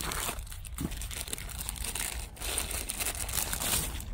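Clear plastic bag crinkling and rustling as a compact night-vision device is pulled out of it and unwrapped, a dense run of small crackles.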